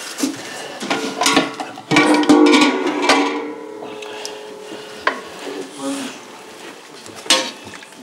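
Bowls and tableware clinking and knocking as a meal gets under way, over a short stretch of plucked-string background music that is loudest a couple of seconds in.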